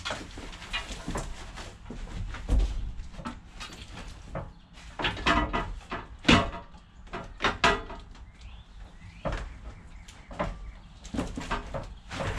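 Irregular knocks and clunks as an Echo backpack blower is set into a green metal blower rack and shifted to fit, the loudest knock about halfway through.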